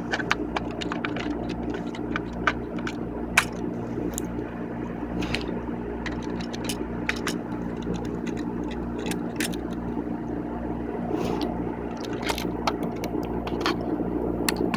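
Scattered light clicks and scrapes of tools and hands on a floppy disk drive as its circuit board is worked loose, over a steady hum.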